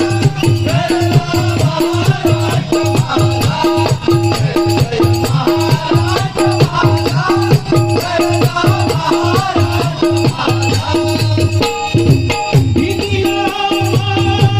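Marathi double-bari devotional bhajan music: voices singing over a steady hand-drum beat, with small hand cymbals ringing on the beat.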